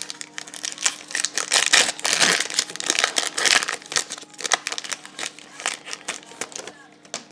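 A trading-card pack's wrapper being torn open and crinkled by hand: a dense, irregular crackling that is loudest a couple of seconds in and thins out toward the end.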